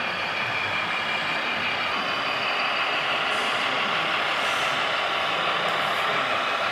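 Scale radio-controlled Mercedes-Benz SK truck driving, its sound running steadily like a truck engine with a few short air-brake hisses.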